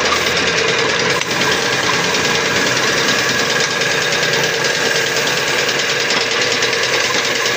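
Gravity-feed air spray gun hissing steadily as it sprays wood finish, over the even pulsing run of an air compressor.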